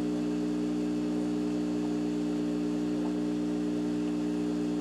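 A steady low mechanical hum, unchanging in pitch and level.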